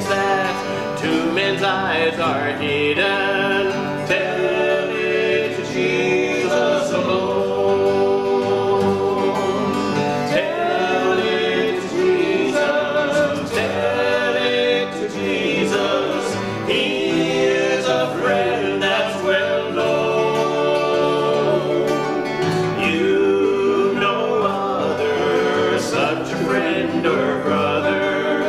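A male voice singing a hymn, accompanied by two acoustic guitars.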